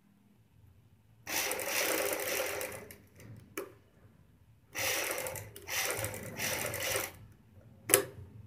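Black domestic sewing machine running in four short bursts of about one to one and a half seconds each, stopping between them, as it stitches along the edge of a garment neckline. A sharp click comes between the first and second bursts, and a louder one near the end.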